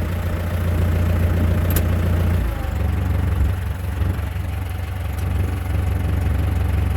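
Case 885XL tractor's diesel engine running steadily with the PTO turning. About two and a half seconds in the note changes and drops lower, then the engine runs on evenly.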